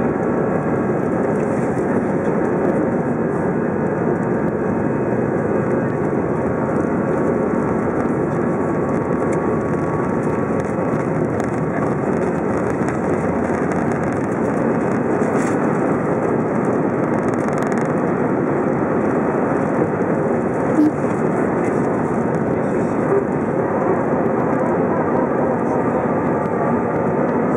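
Airbus A319 jet engines at takeoff thrust, heard inside the cabin over the wing: a loud, steady roar through the takeoff roll and lift-off, with a brief knock about twenty seconds in.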